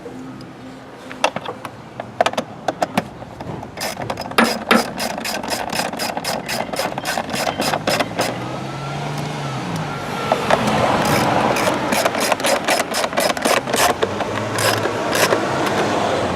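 Hand tools at work in a car's engine bay: a long run of irregular sharp clicks and clatter, with a denser rustling noise building about ten seconds in.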